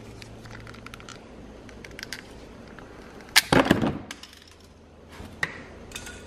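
A pick scraping and clicking against the plastic of a car door speaker and its mounting ring, then a single loud crack about three seconds in as the speaker is forced out of the ring and the plastic breaks.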